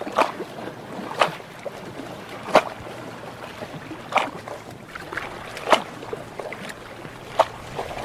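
Water lapping over a steady wash, with six short slaps about a second and a half apart.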